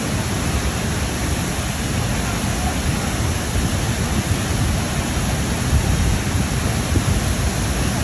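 Ouzoud Falls, a tall waterfall, pouring into its plunge pool close by: a loud, steady rush of falling water with a deep rumble underneath.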